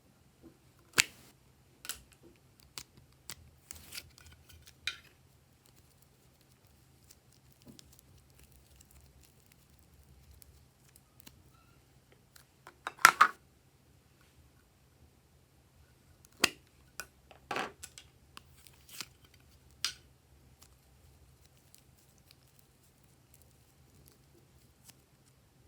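Glossy slime being pressed and stretched by hand, giving scattered sharp clicks and snaps with long quiet gaps between them.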